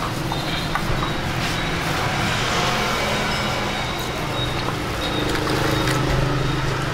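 Steady low rumble with a few light metallic clinks: a metal strainer ladle knocking against a large stockpot of pho broth at a rolling boil.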